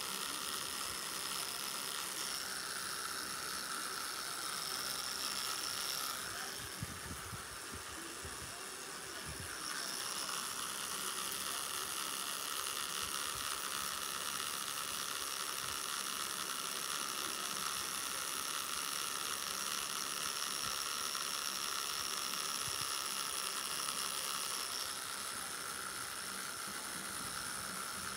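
Electric tattoo machine buzzing steadily as the needle works ink into skin, with a quieter spell about six to ten seconds in.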